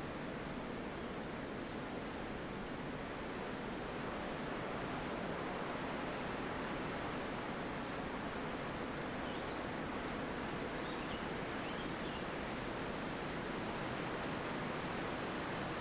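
Steady wind rushing through forest trees, an even, unbroken hiss. A few faint, short bird chirps come in around the middle.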